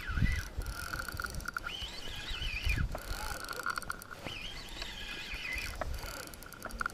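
A spinning reel cranked in spells while fighting a hooked fish: its gear whine rises and falls with each spell of winding, twice, between stretches of fast, even clicking from the reel.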